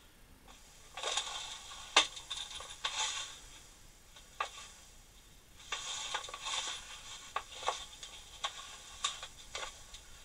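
Small metal tools rattling and clinking as they are handled in wooden workshop drawers, in several short bursts with sharp clicks and knocks, the loudest about two seconds in.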